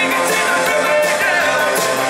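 Live amplified rock band playing, with electric guitars, drums and a singer's voice.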